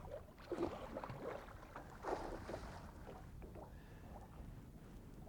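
Water splashing against the boat in two short bursts, about half a second and two seconds in, as a hooked northern pike thrashes at the surface while being brought in, over a low steady rumble.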